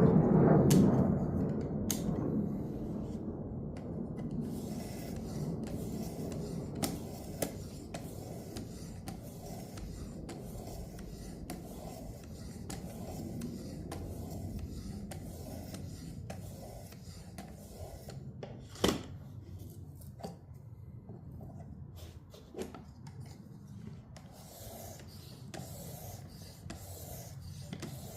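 Abrasive stone of a Work Sharp guided knife sharpener stroked along a knife blade: steady rasping rubs with a few sharp clicks, the loudest about two-thirds of the way through. A louder rumble fades out over the first couple of seconds.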